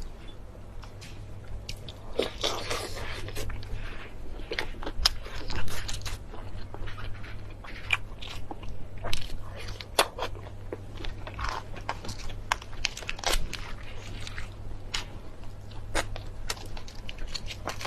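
Close-miked eating of black tiger prawns: crisp crunching bites and chewing, irregular sharp crackles throughout, with a denser stretch of crunching about two to four seconds in.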